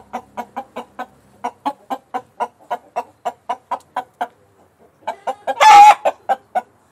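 Domestic hens clucking: a steady run of short clucks, about five a second, with a brief pause past the middle and one louder, longer squawk near the end.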